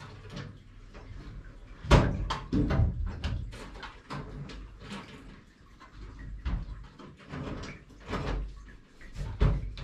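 Steel tool chest drawers being slid and pushed shut, with a series of clicks and clunks and one loud clunk about two seconds in; the drawers are being pushed home so the key lock will engage.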